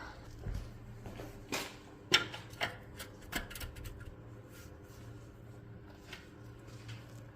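Scattered light knocks and clicks of hand tools and metal parts being handled, the sharpest about two seconds in, over a faint steady low hum.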